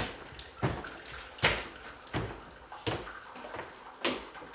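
Footsteps on a wooden floor: slow, evenly paced steps, about one every three-quarters of a second, with a short pause after the fifth.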